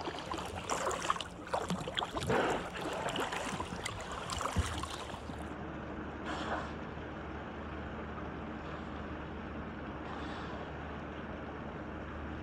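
Water sloshing and splashing around a kayak, choppy for the first five seconds, then a steady low rush of wind and lapping water.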